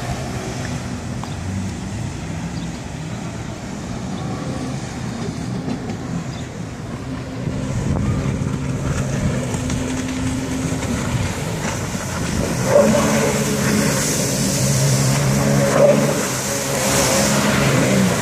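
Jet ski (personal watercraft) engines running and revving as the riders carve turns, louder in the second half as one circles close by, with the rush of its spray.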